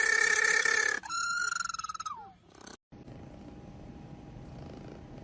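Two long, high animal cries, the second dropping in pitch at its end. Then a cut to a cat purring steadily.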